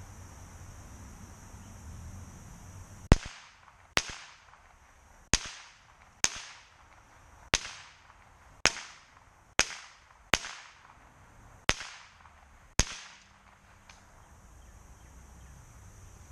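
Savage .22 rifle fired ten times, about one shot a second, each sharp crack followed by a short echo.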